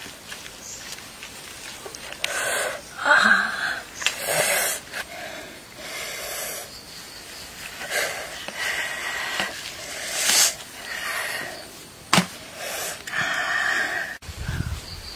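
Large knife sawing and scraping through a charred pumpkin shell in a series of rasping strokes about a second apart, with one sharp knock of the blade about twelve seconds in.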